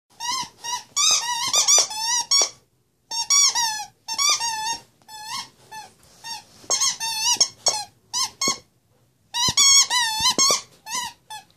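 Plush squeaky toy squeaking over and over as a puppy chews on it, in quick runs of high, wavering squeaks separated by short pauses.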